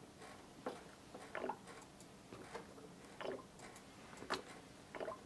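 Faint, scattered small clicks and soft squelches, about six of them at uneven intervals, from oil being filled from a plastic bottle through a hose into the filler pipe of an oil piston airbrush compressor.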